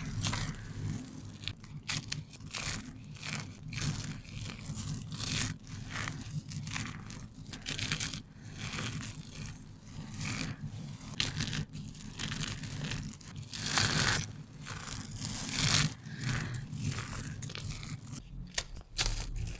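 Hands squeezing and crumbling handfuls of dry soap shavings: irregular, crisp crunching and rustling as the flakes are crushed between the fingers.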